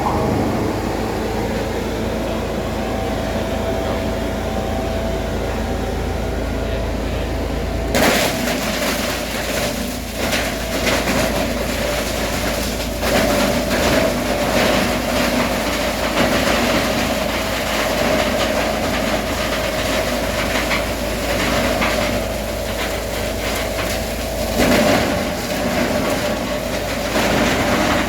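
Coconut husk shredding machine running with a steady hum. About eight seconds in, a dense rattling and crackling sets in and keeps going over the hum.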